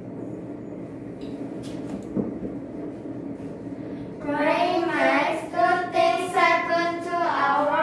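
Low steady room noise with a few faint clicks, then, about four seconds in, children start singing together without accompaniment, in held, drawn-out notes.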